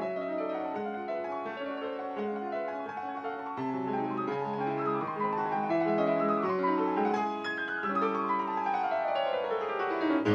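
Piano music with many notes at once, turning to quick falling runs about halfway through and ending in a long descending run.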